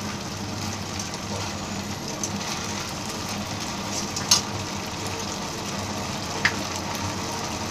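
A thick chilli sauce with onions and peppers sizzling in a metal kadai while a perforated metal ladle stirs it, with a steady low hum underneath. The ladle clinks sharply on the pan twice, loudest about four seconds in.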